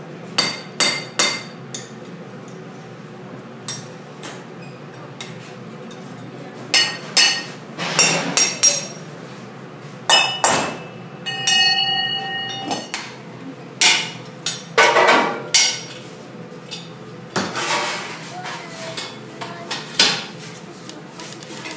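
Steel moulding flasks and mould parts knocked and set down against each other on a foundry sand bench: irregular metallic clanks and clinks, one of which rings briefly about halfway through.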